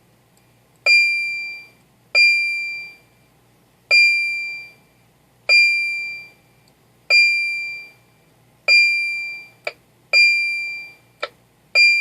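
Electronic Browning-ping noise toy from a Sonar FS-2340 CB radio, played through a mic tester's amplifier: a run of eight sonar-like pings, each starting sharply on one high tone and fading over about a second, roughly every second and a half. Twice near the end a very short blip cuts in between the pings.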